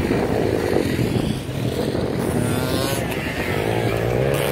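Dirt bike engines revving: a 2006 KTM 50 mini's small two-stroke single and a larger dirt bike that passes close near the end. The engine note rises in pitch as they rev.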